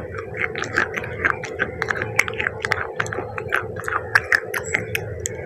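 Close-miked chewing of clay pieces soaked in cola, a dense run of crisp crackles and crunches several times a second.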